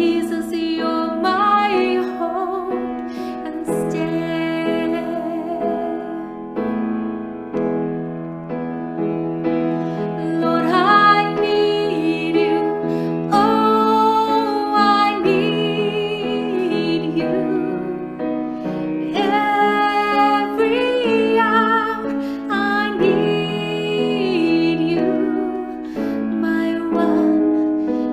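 Woman singing a slow worship song over a piano accompaniment, her voice rising and falling in long held lines.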